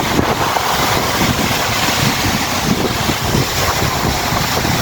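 Wind blowing on the microphone over the wash of sea surf on a beach, a steady rushing noise with low rumbling gusts.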